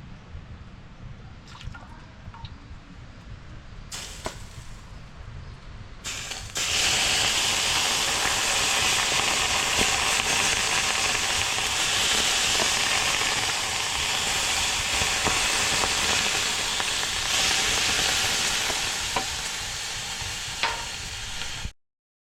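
Steady rush of running water, starting suddenly about six seconds in after a quieter stretch with a few light clicks, and cutting off abruptly near the end.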